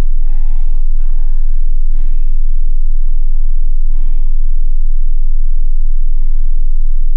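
A sleeping man breathing heavily, one breath about every two seconds, over a loud steady low hum.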